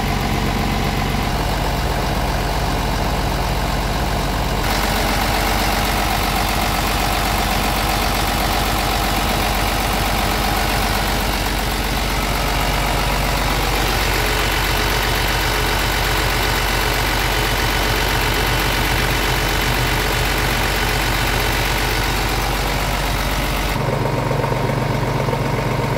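Scania R 450 truck's inline six-cylinder diesel engine idling steadily, its tone shifting a little about four seconds in and again near the end.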